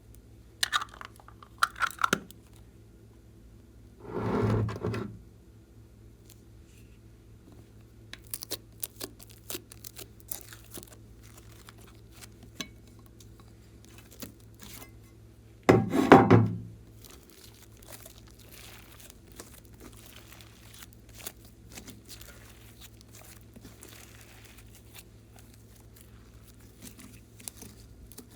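Hands squishing and stretching thick slime: scattered small clicking pops, with a few louder squelches about four and a half and sixteen seconds in, the second the loudest.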